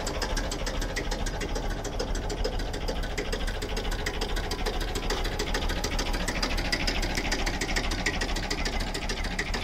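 Freshly restored Massey Ferguson 35 tractor engine idling steadily, with an even, rhythmic clatter.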